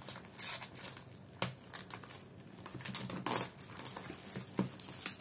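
Plastic shrink-wrap on a pack of modelling-clay tubs crinkling and tearing as it is pulled off, in irregular rustling bursts. A few sharp clicks of the plastic tubs and tray being handled come in between.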